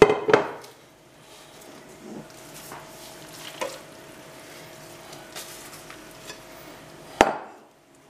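Aluminium pot and metal bowl clanking as they are handled: a sharp ringing knock right at the start, small taps in between, and another sharp knock about seven seconds in.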